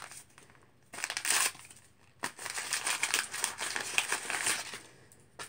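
Paper crinkling and crumpling in the hands as it is pulled off a wrapped fidget spinner. There is a short burst about a second in, then a longer stretch of crackling from about two seconds to nearly five.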